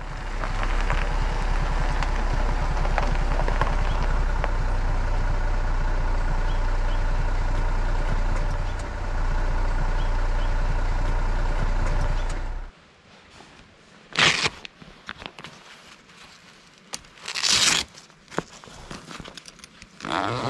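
Jeep Grand Cherokee engine idling, heard close to the exhaust: a steady low rumble that stops abruptly about twelve seconds in. Then quiet with two short, sharp ripping sounds, Velcro straps being pulled off the rolled-up roof awning cover.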